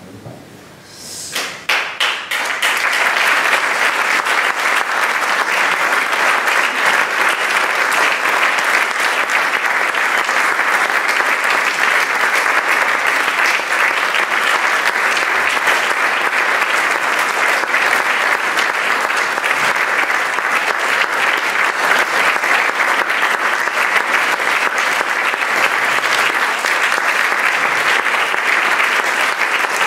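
Theatre audience applauding: a few scattered claps about a second in swell within a couple of seconds into steady, dense applause.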